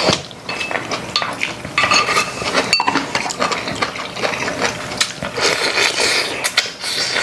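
Tableware clinking during a meal: spoons and chopsticks tapping and scraping against bowls in a rapid, irregular series of short clicks, a few of them ringing briefly.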